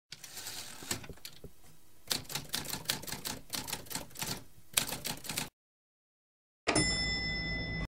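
Typewriter keys clacking in a quick, uneven run as text is typed out. After a pause, a ringing bell-like ding with several steady tones comes in near the end and cuts off abruptly, like a typewriter's carriage bell.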